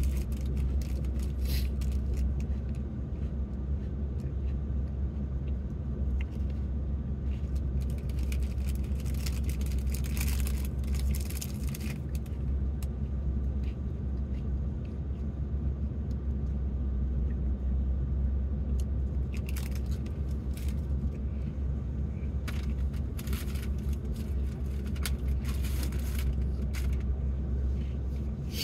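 Steady low rumble of an idling vehicle engine, heard from inside the cabin. Over it come scattered short bursts of crunching and crinkling as cookies are eaten, mostly in the middle and later part.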